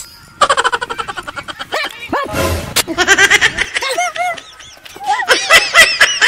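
Small dog yipping and barking in quick runs of short, sharp calls. The loudest run comes near the end.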